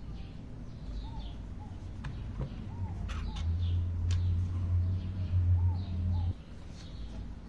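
Birds chirping in the background, short repeated chirps. A few sharp clicks come about three to four seconds in, and a loud low hum starts about three seconds in and cuts off suddenly after about six seconds.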